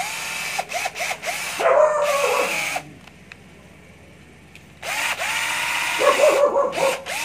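Cordless drill/driver motor test-run in two bursts of about two to three seconds each, about two seconds apart. The trigger is squeezed and eased so the whine rises and falls. The chuck spins freely without jamming.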